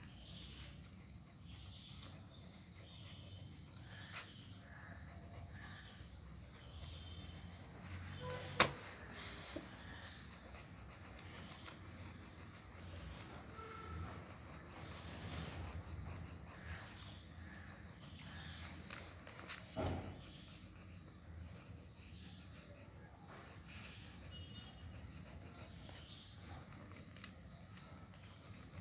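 Pencil scratching and rubbing on sketchbook paper as a dark area is shaded in with quick back-and-forth strokes. Two brief sharp knocks stand out, a loud one about a third of the way in and a softer one about two-thirds in.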